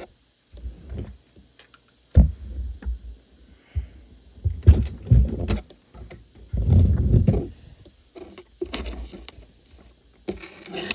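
Irregular plastic clicks, knocks and rubbing of Lego pieces being handled as a trailer is unhitched, with heavier bumps close to the microphone.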